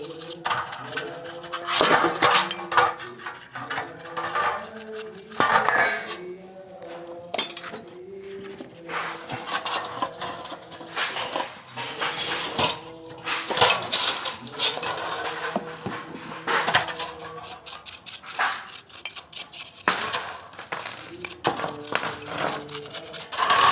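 Irregular metallic clinks and clatters of tools and scooter CVT parts being handled and knocked together during cleaning.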